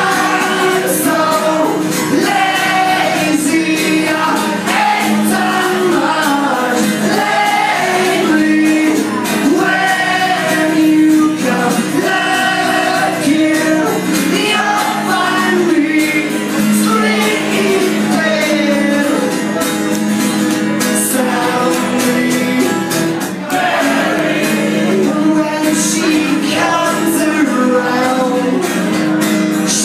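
Solo male singer performing live with his own acoustic guitar, the voice sung full and loud over steady strummed chords.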